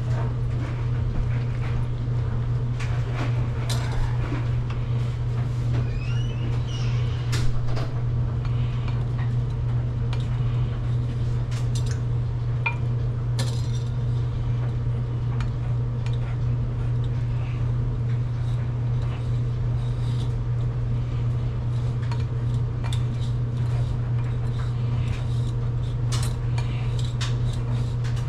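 A metal utensil clinking and scraping against a mixing bowl in irregular short strokes while flour, butter and hot water are stirred together into flatbread dough. A steady low hum runs underneath throughout.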